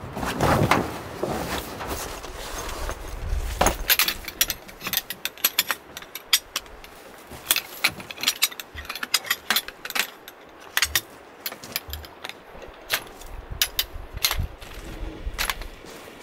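A metal-legged folding camp chair being unfolded and its legs snapped into place: a dense run of sharp, irregular metal clicks and rattles.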